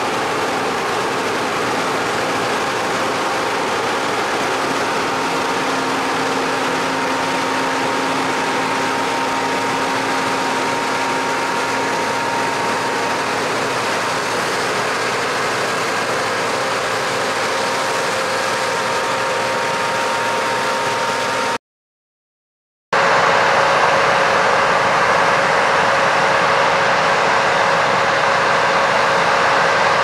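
Combine harvester running steadily under load, a continuous mechanical drone with a faint held whine. It cuts out for about a second past the midpoint, then resumes a little louder at a different pitch.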